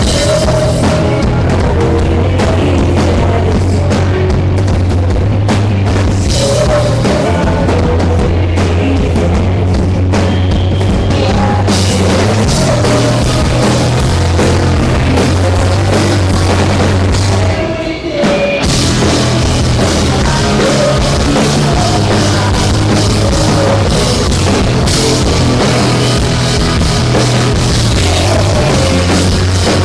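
Live rock band playing a loud song with a drum kit driving it, with a brief break a little past halfway.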